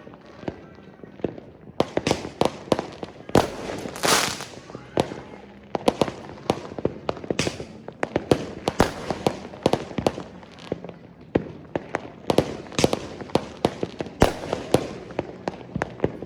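Fireworks and firecrackers going off: a dense, irregular run of sharp bangs and cracks, with a longer hissing burst about four seconds in.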